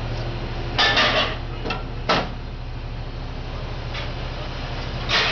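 A handful of sharp metallic clanks and clinks at irregular intervals, a short cluster about a second in and single ones later, over a steady low hum.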